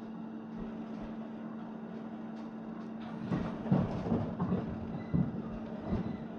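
Electric train running, heard from inside the carriage: a steady low hum over the running noise, with a cluster of knocks and clanks from about halfway through.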